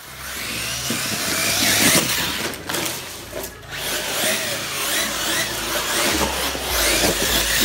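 Arrma Kraton 6S RC truck's brushless electric motor whining, rising and falling in pitch as it is throttled up and back off, over a rush of tyre noise on the dirt.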